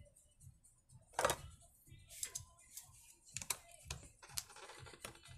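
Scattered light clicks and taps of a screwdriver and small metal parts while the screws of a chainsaw's plastic starter cover are undone, the loudest clink about a second in.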